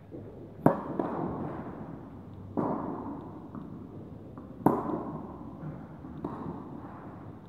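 Tennis ball struck by racquets in a rally: four hits about two seconds apart, two sharp loud ones from the near player alternating with duller, fainter ones from the far end. Each hit rings on in the echo of the indoor hall.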